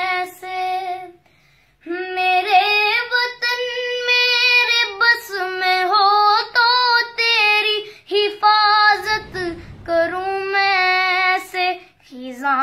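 Young girls singing a patriotic song without instruments, one melody line with a short pause about a second in.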